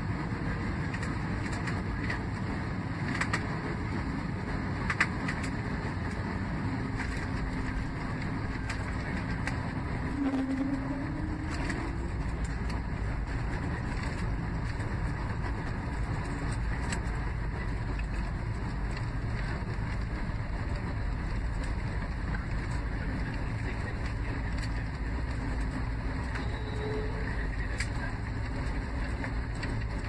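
Steady engine and airflow noise with a low rumble, heard inside the cabin of an Airbus A320-family airliner rolling along the runway after landing. The rumble grows deeper about halfway through, and there are a couple of sharp clicks in the first few seconds.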